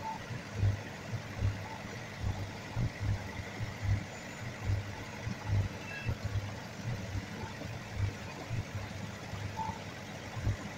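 Deep low thumps in an uneven beat, about one or two a second, over a steady low hum.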